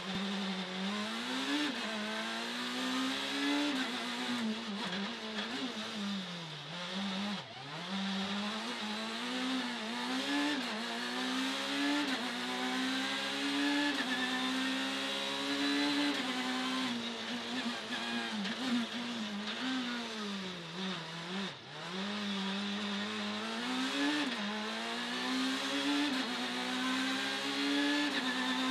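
Citroën C2 Super 1600 rally car heard from inside the cabin at full pace: its 1.6-litre four-cylinder engine revs climb and fall back again and again as it goes up and down the gears, with two deep drops in revs. A constant hiss of road and wind noise runs underneath.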